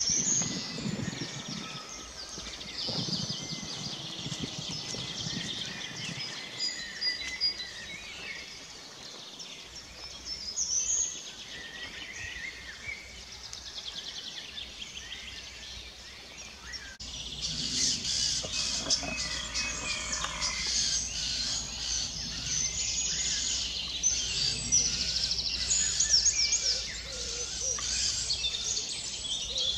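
A chorus of songbirds singing, many overlapping chirps and trills. An abrupt change a little past halfway brings busier, louder song.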